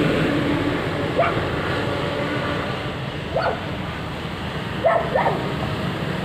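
A dog barking in short yaps: one about a second in, one midway, and two close together near the end.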